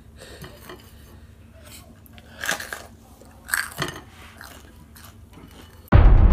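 Crunching bites and chewing of a raw jalapeño pepper, with two loud crunches about a second apart. Near the end, loud electronic music with a steady pulsing beat starts suddenly.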